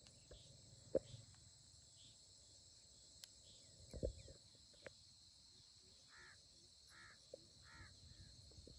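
Faint steady chorus of crickets or other insects at dusk, with a few soft knocks about a second in and around four seconds. Near the end come three short animal calls, evenly spaced about a second apart.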